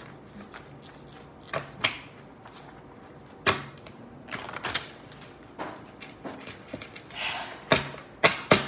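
Irregular clicks and knocks of small objects handled on a tabletop, about a dozen in all, with the loudest few close together near the end.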